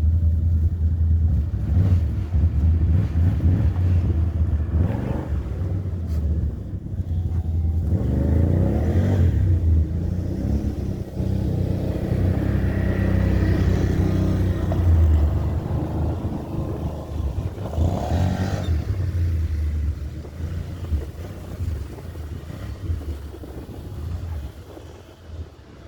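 Steady low rumble of wind buffeting the microphone, with passing traffic swelling up and fading away several times.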